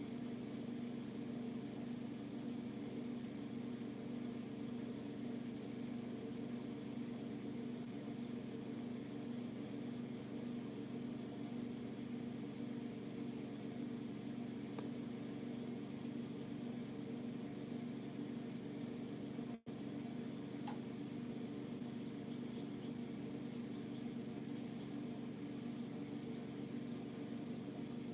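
Steady low hum of a small electric motor or fan, unchanging throughout, with a brief dropout about twenty seconds in.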